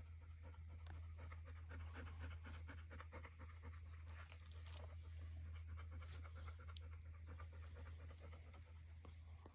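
A dog panting quickly and faintly, over a low steady hum.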